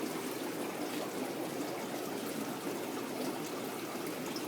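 Aquarium water trickling steadily.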